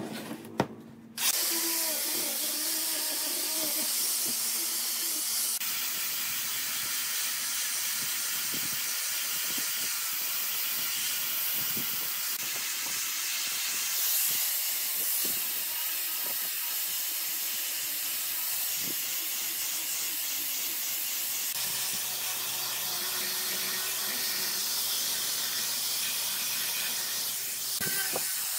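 Handheld electric angle grinder with a sanding attachment abrading pine wood: a steady hiss of grit on wood over the motor's hum. It picks up about a second in and then holds level.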